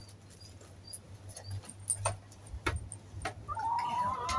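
A lurcher whining: one thin, slightly rising whine lasting about a second near the end, after a few faint scattered taps.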